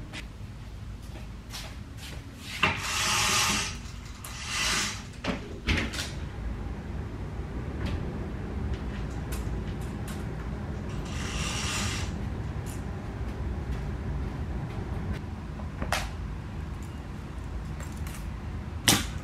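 Household handling sounds: scattered clicks and knocks, like cupboards or objects being set down, with a few short swishing or rustling noises, over a low steady rumble.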